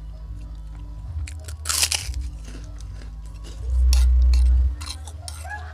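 Close-up chewing and crunching of crunchy food, with many small crackles and one loud crunch just before two seconds in. A loud low boom lasts about a second near four seconds in.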